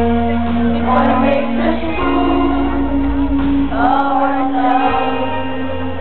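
Live rock band playing with a vocalist singing, heard from within the concert crowd.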